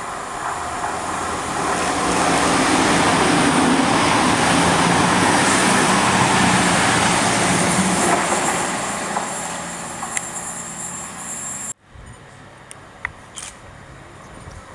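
A train passing: its running noise swells over about two seconds, holds loud, then fades. It cuts off abruptly near the end, leaving a quieter background with a few clicks.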